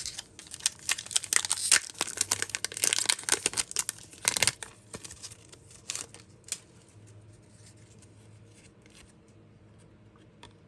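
Crinkling and tearing of a trading-card pack's wrapper for about four and a half seconds, followed by a few light clicks as the cards are handled.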